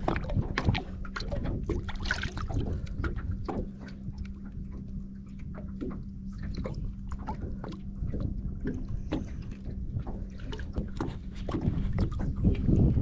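Water splashing and sloshing, with small knocks, as a bar-tailed flathead is held by the jaw at the surface and released. A steady low hum runs underneath and stops near the end.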